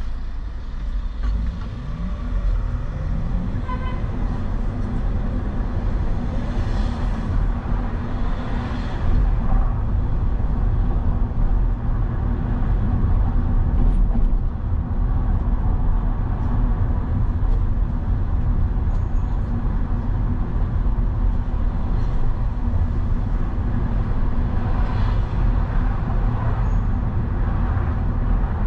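Road vehicle driving through city traffic: a steady engine and road rumble, with the engine note rising as it speeds up about two seconds in.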